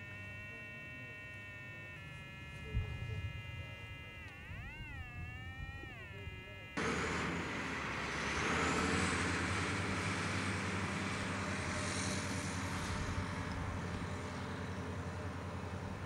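A steady buzzing tone with several overtones; about four seconds in its pitch swings up and down twice. A little before halfway it cuts off abruptly to a louder, steady rushing noise with a low hum.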